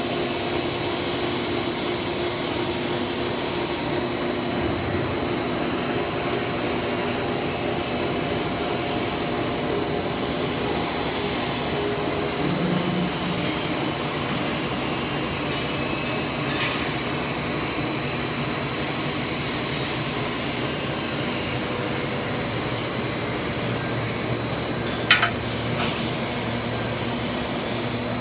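PVC foamed-board extrusion line running: a steady machine drone with a low hum and a thin, steady high whine over it. A single sharp knock sounds near the end.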